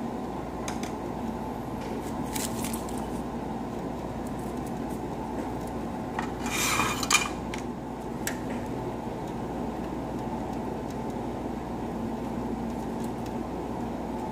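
Handling noises at a soldering bench over a steady low hum: a few light clicks and taps, and about six and a half seconds in a brief scrape as the soldering iron is drawn from its coiled wire stand.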